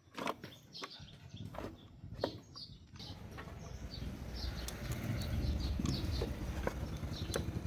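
Small birds chirping repeatedly over a low, steady rumble that grows louder about three seconds in, with a few light clicks.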